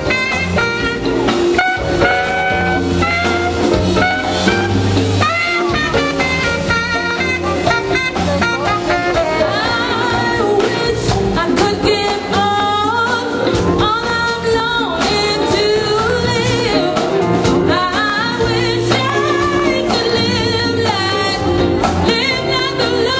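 Live band playing jazzy music: drum kit and congas keep a steady groove under saxophone and a singing voice.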